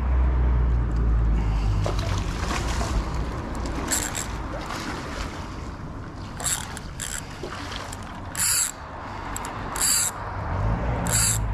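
Spinning reel's drag buzzing in about six short bursts as a hooked carp pulls line off it, over clicking from the reel and a steady low rumble.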